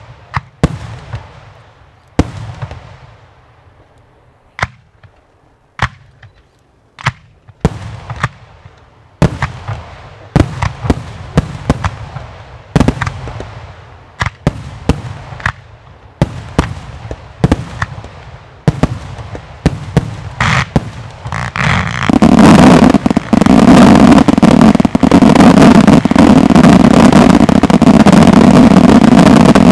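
Firework batteries firing a finale. Sharp single bangs come about once a second at first, then ever faster. About 22 seconds in they merge into a continuous, very loud barrage of rapid shots.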